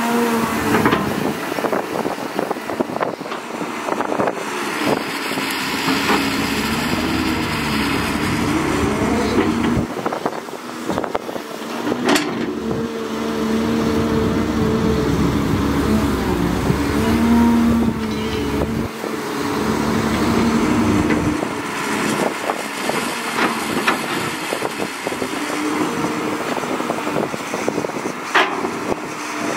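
Caterpillar 320C hydraulic excavator's six-cylinder diesel engine running under load as the bucket digs dry soil, its pitch rising and falling with the hydraulic work. Two sharp knocks stand out, one about twelve seconds in and another near the end.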